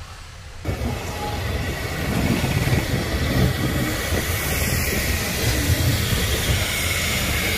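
Train running on the rails, a dense steady rumble that starts abruptly just under a second in, grows louder over the next second and then holds steady.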